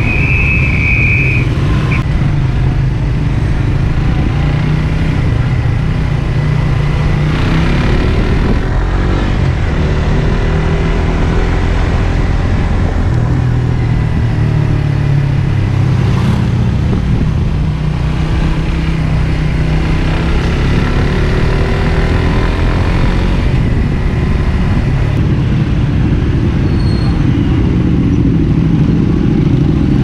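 Suzuki GSX-R150's single-cylinder engine running under the rider, its pitch rising and falling several times as the throttle opens and closes, over the steady noise of the surrounding motorbike traffic. A short high beep sounds right at the start.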